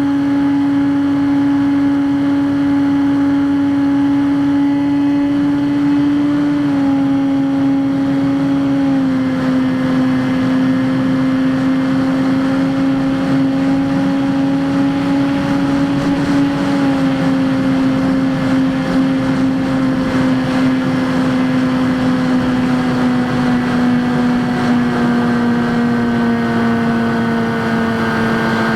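Skywalker X5 flying wing's electric pusher motor and propeller running steadily in flight, a constant buzzing drone over a rush of air. Its pitch steps down slightly a few times as the throttle is eased.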